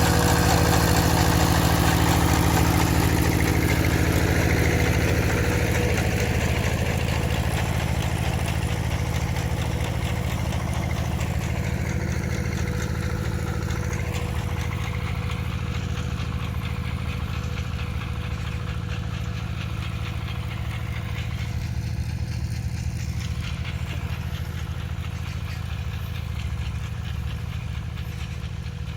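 Engine of a potato-digging farm machine running steadily, a low hum with a constant tone, slowly growing fainter over the stretch.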